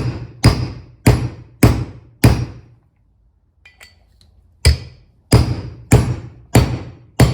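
Hammer blows on a 30 mm socket, driving an inner clutch-hub seal into its bore in a Gravely riding-tractor transmission case. About ten sharp metallic strikes, each ringing briefly, in two runs of five at about two a second, with a pause of about two seconds between them holding a few light taps.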